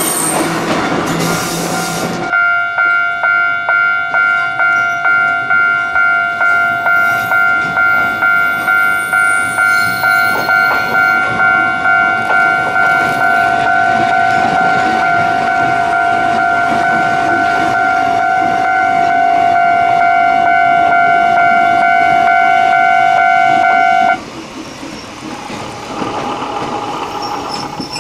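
A loud electronic warning tone sounds over train noise. It pulses about twice a second, then holds steady and cuts off suddenly a few seconds before the end.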